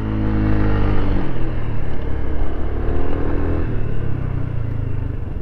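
Motor scooter engine slowing, its pitch falling over the first second or so, then running low and steady.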